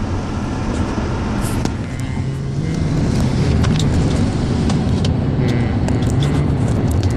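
Car engine and road noise heard from inside the moving car, with the engine pitch rising and getting louder about three seconds in as it speeds up. A few faint sharp clicks are heard along the way.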